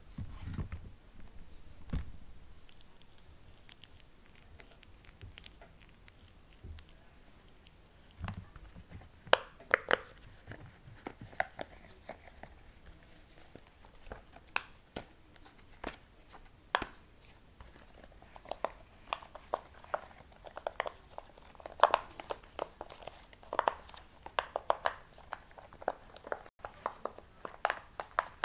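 Small fidget toys being handled: irregular clicks, taps and crinkling, sparse at first and coming thick and fast in the second half.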